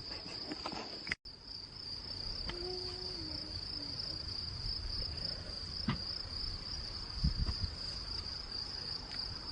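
Insects, probably crickets, trilling in one continuous high-pitched drone, with a few soft low knocks near the end.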